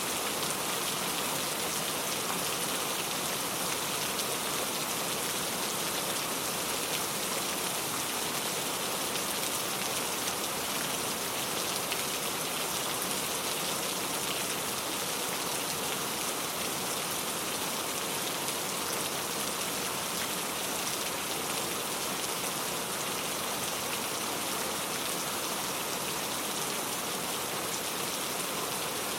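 Steady rain: a dense, even hiss of falling rain with a fine patter of drops, unchanging throughout.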